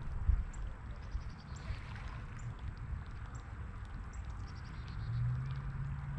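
Fishing reel cranking a Whopper Plopper topwater lure back across the pond, under a constant low rumble on the microphone with faint ticks about once a second. A steady low hum comes in about five seconds in.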